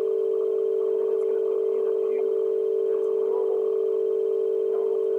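A loud, steady electronic tone held at one pitch without a break, like a telephone dial tone.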